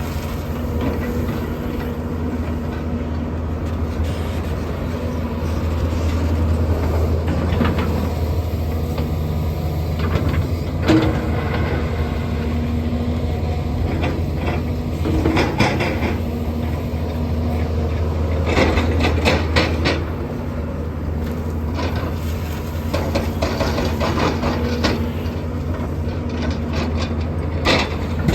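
Doosan excavator's diesel engine running steadily, with several short rattling bursts as the bucket works loose asphalt millings.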